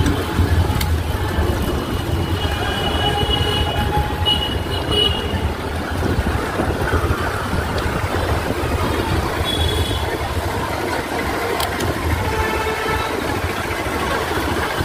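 Steady road traffic noise with wind rumbling on the microphone of a moving bicycle. A few short vehicle horn toots sound now and then.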